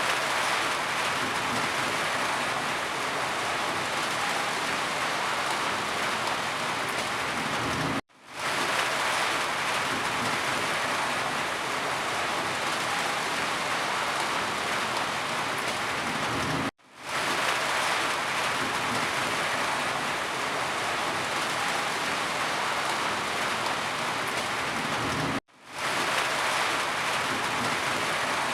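Steady rain falling, a dense even hiss of drops. The sound drops out for a split second three times, about every eight and a half seconds, where a short rain recording loops.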